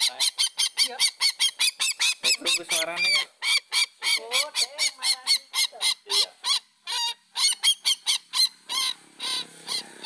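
Papuan sintar (ruak-ruak, a rail) calling in a fast run of short, arched, honking notes, about four to five a second, as used for a bird lure; near three seconds in a lower, wavering call joins in.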